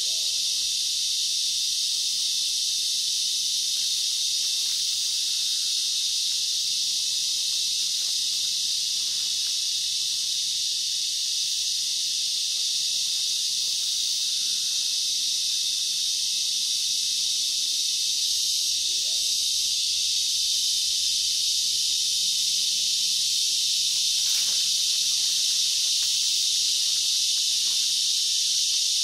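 Dense chorus of rainforest insects: a steady, high-pitched hiss that never lets up.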